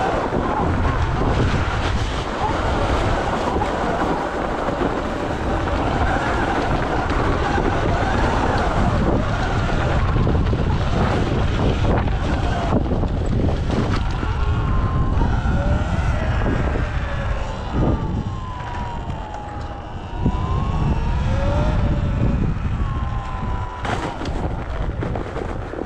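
Wind buffeting a GoPro's microphone: a loud, steady low rumble. A few short whistling glides sound faintly in the second half.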